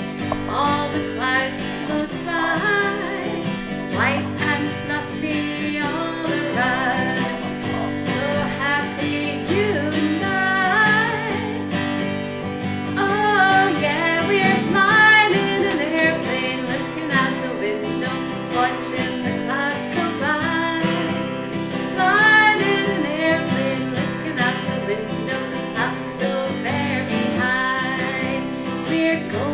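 Acoustic guitar strummed steadily, with a singing voice carrying the melody over it.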